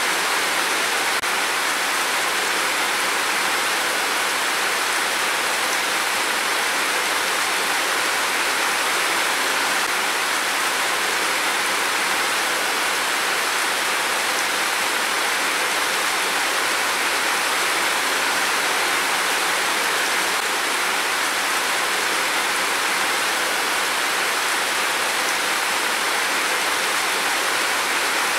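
Heavy rain falling as a steady, even downpour hiss.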